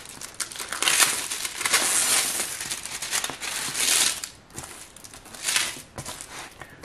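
Clear plastic film over a diamond-painting canvas crinkling as a hand presses and handles it: a long stretch of crinkling for the first few seconds, then a shorter rustle about two-thirds of the way through.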